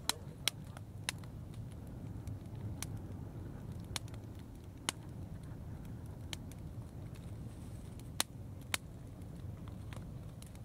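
Wood fire burning in a traditional juniper-oil kiln, crackling with sharp irregular pops over a low steady rumble.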